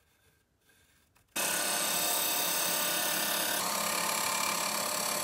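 A Delta belt/disc sander's 6-inch disc sanding the end of a small wooden spline, a steady rushing grind that starts abruptly about a second in.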